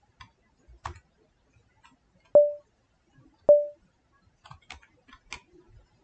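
Faint computer keyboard and mouse clicks, with two much louder sharp clicks about a second apart, each ringing briefly at one pitch.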